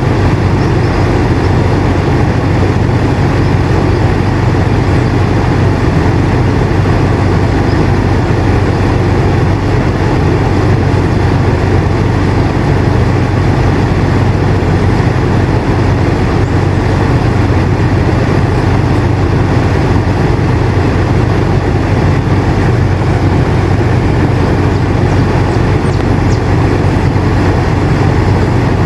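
Air conditioner running steadily: a constant low hum under an even rush of airflow noise, with no change in level.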